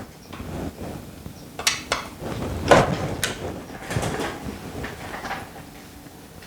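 Scattered clicks and knocks of hand tools and metal and plastic parts being handled while an Echo chainsaw is taken apart; the loudest click comes a little before the middle, and it grows quieter near the end.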